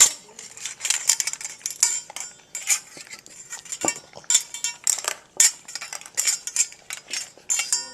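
English bulldog puppy eating fast from a food bowl: an irregular run of clinks and clatters as his mouth pushes the food around and knocks the bowl.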